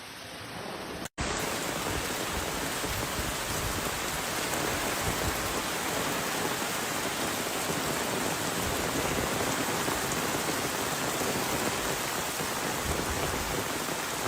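Heavy rain making a dense, steady hiss. It starts abruptly about a second in at an edit cut.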